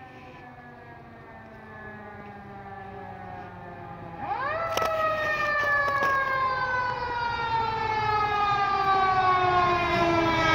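Fire engine's mechanical siren, approaching and growing louder: a faint, slowly falling wail, then about four seconds in it winds up quickly to a high pitch and slowly winds down again.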